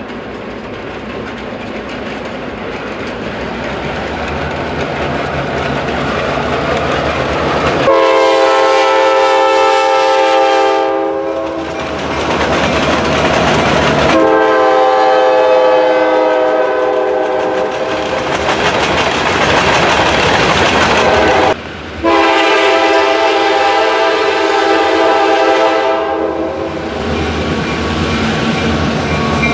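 Diesel freight train passing, its rumble growing steadily louder, then the locomotive's air horn sounding in long blasts of about three to four seconds each. After an abrupt break the horn sounds twice more as the locomotives approach.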